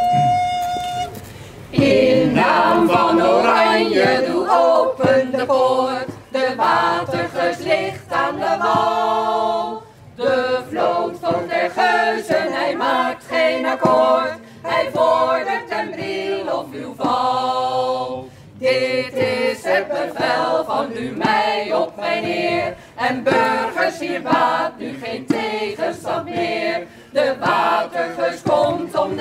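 A held flute note ends about a second in. Then a small group of men and women sing a Dutch song together in phrases, with short breaks for breath.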